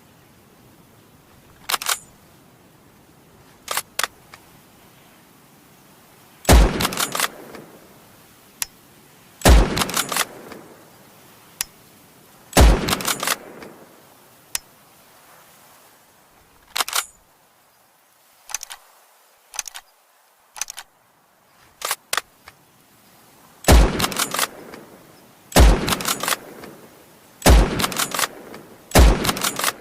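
Springfield M1903 bolt-action rifle: seven loud shots, each with a deep report and a ringing tail, the last four coming quickly, about two seconds apart. Between the shots come quieter metallic clicks and clacks of the bolt being worked.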